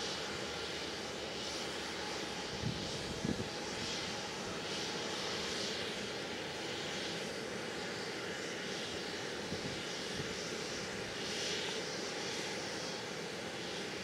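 Widebody jet airliner's engines running with a steady rushing noise, a high hiss swelling and fading every second or two. A couple of short low thumps come about three seconds in.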